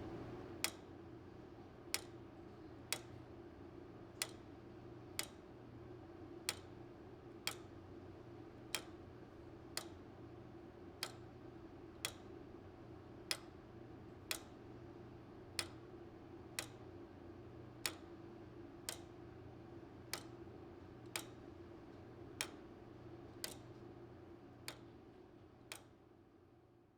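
The restored 1913 J. Smith and Sons tower clock movement ticking steadily, about one tick a second, with the gaps alternating slightly long and short.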